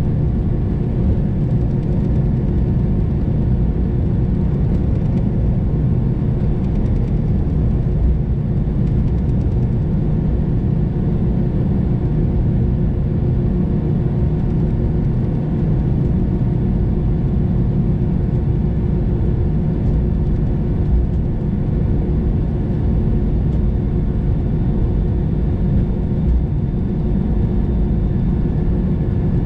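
Steady low rumble heard inside an Airbus A320's cabin as it taxis with its engines at idle. A few steady hum tones run over it and the level does not change.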